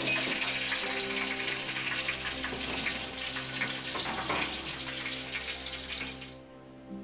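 Roast Peking duck just out of the oven, its hot fat and skin sizzling in the pan: a steady hiss with fine crackles that cuts off abruptly near the end. Soft background music plays underneath.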